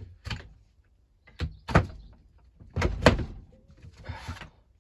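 A handful of sharp knocks and clatters, loudest about two and three seconds in, then a short rustle: hard tools being picked up and put down while a screwdriver is fetched.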